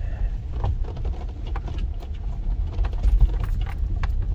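Vehicle rolling slowly along an unpaved gravel road, heard from inside the cabin: a steady low rumble of engine and tyres, with scattered clicks and knocks from loose stones and the bumpy surface.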